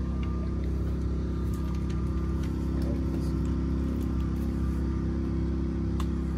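Steady low mechanical hum with several even tones, like an engine or machine running at a constant speed, with a few faint clicks.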